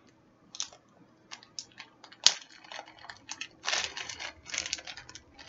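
Crackling and crinkling from a rice pop hamster treat being handled and torn at by hand, with scattered small clicks and one sharp snap a little past two seconds in.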